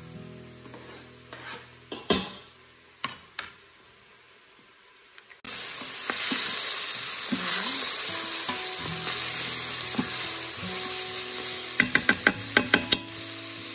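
Chopped bacon sizzling as it fries in an Instant Pot's stainless steel inner pot on the high sauté setting, stirred with a wooden spoon. Before that there are a few knocks as the bacon is scraped off a plastic cutting board. The sizzle starts abruptly about five seconds in, and a quick run of sharp clicks comes near the end.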